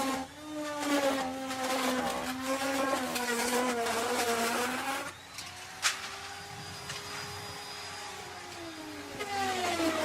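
Electric wood router cutting wood. Its motor whine sits low and sags under the load, with harsh cutting noise, for about five seconds. It then runs lighter and higher-pitched with a sharp click about six seconds in, and drops in pitch again near the end as it bites back into the wood.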